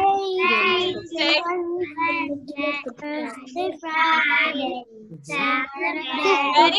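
Children's voices singing a days-of-the-week song together with a woman, the voices overlapping, heard over a live video call.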